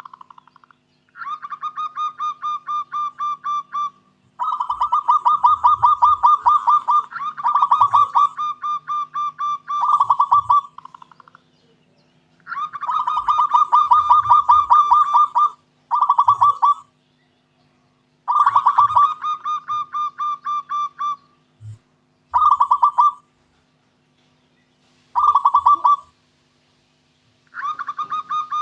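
Zebra dove (local perkutut) calling: about ten runs of rapid, staccato coo notes, around five notes a second, each run lasting from under a second to about three seconds, with short pauses between.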